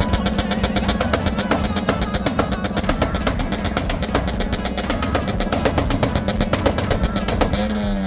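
A vehicle engine revved up and held at a steady high speed, stuttering with an even, rapid crackle about nine times a second. Its pitch starts to fall near the end as the revs drop.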